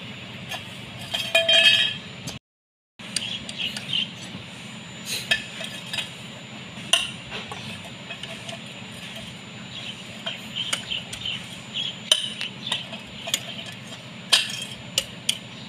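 Irregular metallic clinks and clicks of a socket wrench working the connecting-rod cap bolts of a Kubota M9540 engine, over a low steady hum. The sound cuts out completely for about half a second a little over two seconds in.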